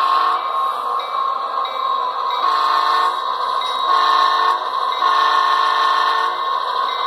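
Tsunami2 sound decoder in an HO-scale Athearn CF7 model diesel locomotive sounding its horn in four blasts, the last the longest, played through the model's small onboard speaker. The decoder's steady diesel engine sound runs underneath.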